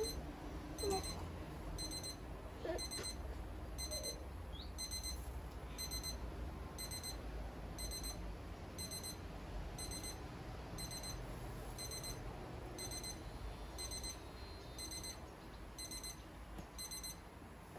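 Maverick wireless BBQ thermometer's alarm beeping, short high beeps about once a second, signalling that the meat has reached its set core temperature.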